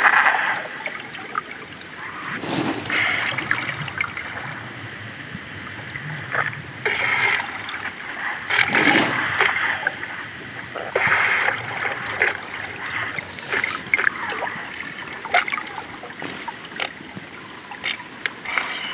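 Hippopotamuses in water: splashing and trickling water, with several loud noisy bursts of breath a few seconds apart, the strongest about nine seconds in.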